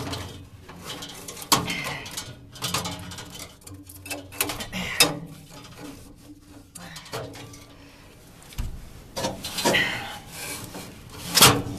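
A washable furnace filter being pushed and worked into its slot: irregular scraping and rubbing with several sharp knocks, the loudest near the end, as it catches at the back of the slot.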